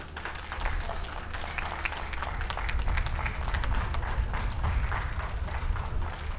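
Audience applauding: many hands clapping at once, swelling about half a second in and keeping on.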